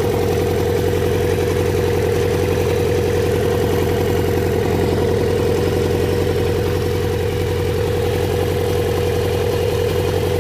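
1981 Kawasaki KZ750 LTD motorcycle engine idling steadily with a rough, throaty sound that the owner traces to the top of the engine, where oil is leaking out. The noise started after the carburettors were cleaned and the air-fuel mixture roughly adjusted.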